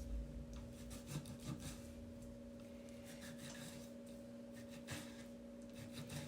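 Faint knife work on beef at a cutting board: soft scrapes and light taps, scattered irregularly. A steady low hum runs underneath.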